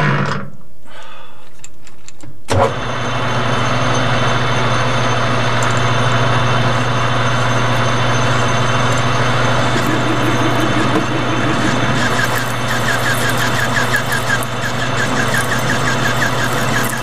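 Metal lathe switched on with a clunk about two and a half seconds in, then running with a steady motor hum as the chuck spins. From around ten seconds in a faint, fast ticking joins the hum.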